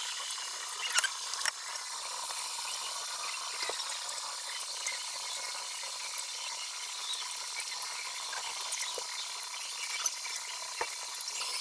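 Hotcake batter sizzling in a hot, oiled electric frying pan: a steady soft hiss with faint crackles. A couple of light utensil clicks about a second in.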